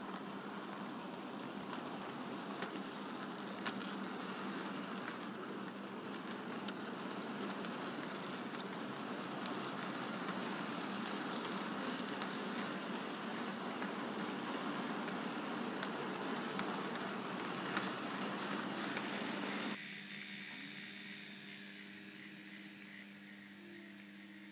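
OO gauge model goods train running past: the wheels of a long rake of model wagons rumble and clatter along the track with many rapid small clicks, over a steady motor hum. About twenty seconds in it cuts abruptly to a quieter, steady hum of small model shunting locomotives moving in a yard.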